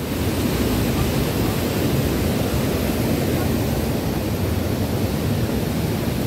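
Steady rush of a waterfall and mountain stream pouring over rocks, an even noise with no breaks.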